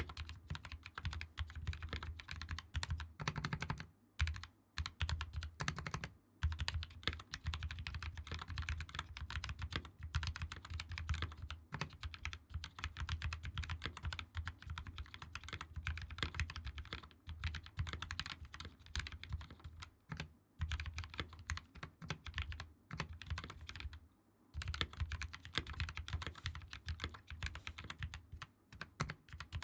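Steady fast typing on a custom 60% mechanical keyboard: Gateron CAP switches lubed with Krytox 205g0 and filmed, in a plastic case with a brass plate and GMK keycaps. The keystrokes come in quick runs, with a few brief pauses, the longest about 24 seconds in.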